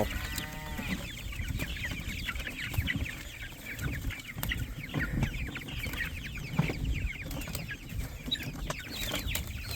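A flock of young broiler chickens cheeping and clucking, many short high calls overlapping without a break.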